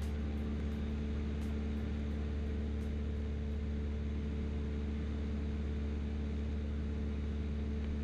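Cessna 172's piston engine and propeller droning steadily in flight, heard inside the cabin, with a constant deep hum and an even engine tone that does not change.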